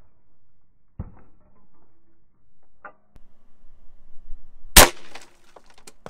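A single sharp, loud shot from an AEA HP Max .45 caliber PCP air rifle near the end, with a few fainter knocks before it and a few short clicks after it.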